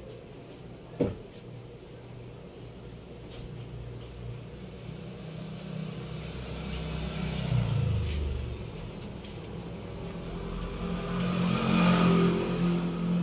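A motor vehicle engine running, growing louder, with a low pitch that falls about eight seconds in and the loudest stretch near the end; a sharp click about a second in.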